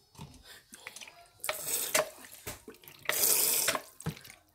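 Thin, wet marinade of yogurt, spices and lemon juice being stirred in a bowl: two splashy, sloshing swishes, about a second and a half in and again around three seconds in, with small wet clicks between them.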